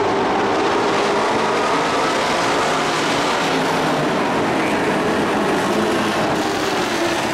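A pack of dirt-track race trucks running laps together, many engines at once in a steady, dense drone.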